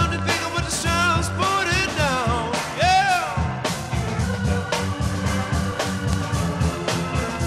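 Rock and roll band playing live, with drums keeping a fast, steady beat under guitars and keyboard. A voice sings a wavering, sliding line over the first half.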